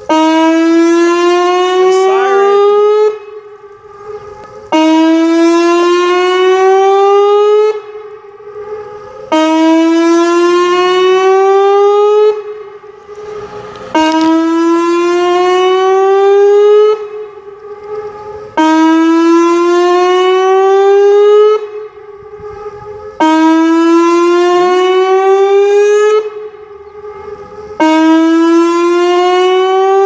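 Pole-mounted outdoor warning siren sounding its weekly test. It gives a loud tone that rises steadily in pitch for about three seconds, cuts off and starts again lower, about every four and a half seconds, with a fainter steady siren tone carrying through the gaps.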